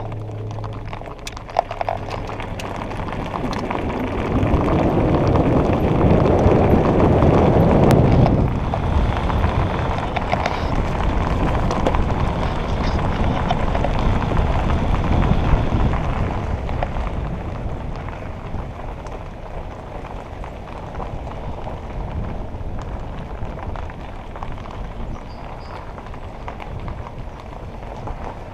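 Road and wind noise from a car driving along a road, an even rumbling hiss that grows louder about four seconds in, stays loudest for a few seconds, and eases off after about sixteen seconds.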